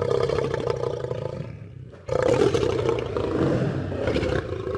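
Lion roaring in two long, rough bouts; the first fades out about two seconds in and the second starts abruptly right after.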